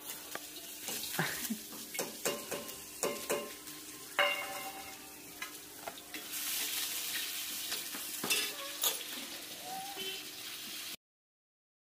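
Cooking at a stove: metal utensils clink, knock and scrape against a griddle and pots, with a frying sizzle, more hiss in the second half. The sound cuts off suddenly near the end.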